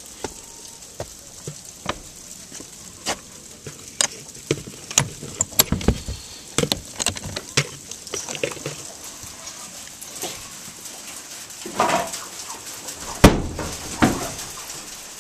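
Footsteps and handling knocks on wood: a person crossing a wooden deck and working the metal handle of a wooden chicken-coop door to open it, with one loud knock near the end.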